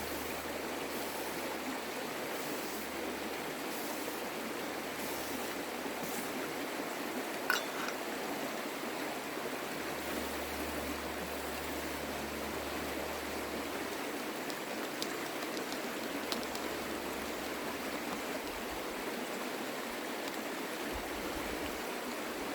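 Steady rushing of a creek, with one sharp clink about seven and a half seconds in and a couple of faint ticks later on.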